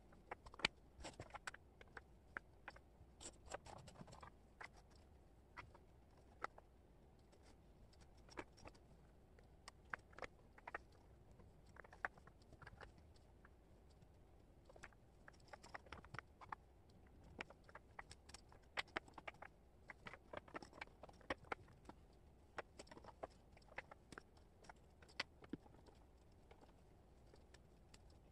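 Small wooden jigsaw puzzle pieces clicking and tapping as they are picked up, shuffled and set down on a cork board. The light clicks come irregularly, in clusters of several a second, with short pauses between.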